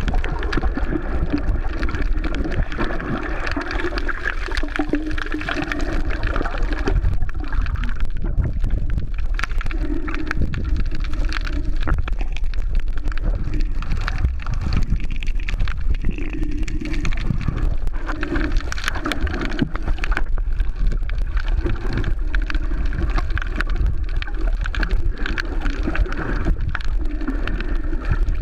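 Muffled rushing and gurgling of water picked up by a camera held underwater, with many small clicks throughout.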